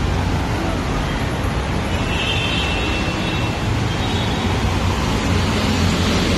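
Steady road traffic of cars and motorcycles passing on a busy multi-lane highway. A faint high whine comes through about two seconds in and lasts around a second and a half.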